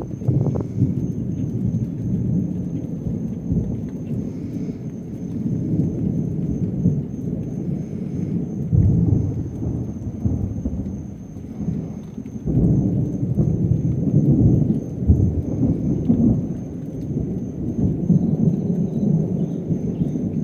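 Thunder rolling in a long, continuous low rumble that swells and fades several times, loudest a little past the middle.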